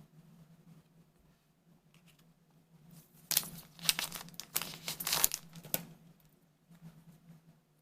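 Crinkling and rustling of a trading card booster pack wrapper being handled, a burst of dense crackles lasting about two and a half seconds starting a few seconds in. A faint steady low hum runs underneath.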